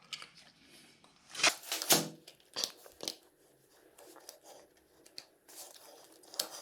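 Hands working a motorcycle clutch cable free by hand: a few sharp clicks and knocks, the loudest two about half a second apart, then softer rustling and scraping.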